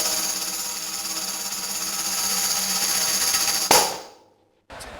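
Music: a sustained tambourine-like jingling shimmer over steady held tones, ending with one struck accent about three and a half seconds in that dies away to a brief silence. A fainter steady hiss starts near the end.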